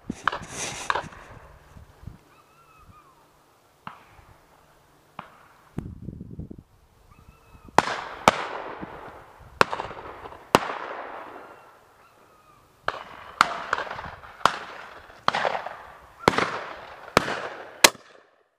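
Shotguns firing on a driven shoot: more than a dozen sharp reports, each with an echoing tail, scattered at first and then coming thick and fast in the second half.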